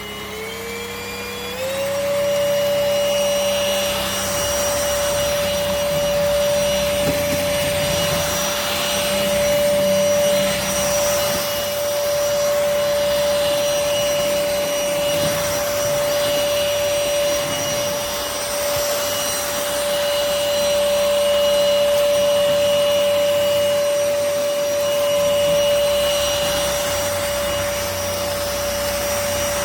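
MBYULO cordless stick vacuum's motor spinning up, its whine rising in pitch over the first couple of seconds. It then runs steadily at one high pitch, the level rising and falling slightly.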